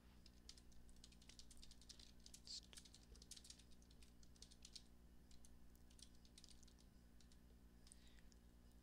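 Faint typing on a computer keyboard: a quick run of key clicks that thins out after about five seconds, over a low steady hum.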